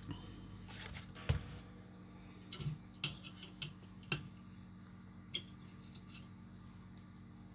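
Small side cutters snipping soldered component leads on a circuit board: several short, sharp clicks at irregular intervals.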